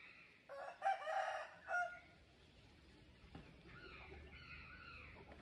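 A rooster crowing once, a loud call in several parts about half a second in; fainter bird calls follow in the second half.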